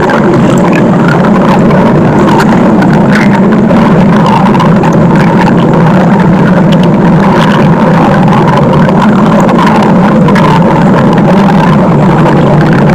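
Loud, continuous stomach growl sound effect: a steady, unbroken rumble.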